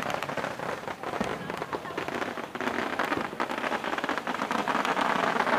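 Strings of firecrackers going off in a dense, rapid crackle that grows louder toward the end.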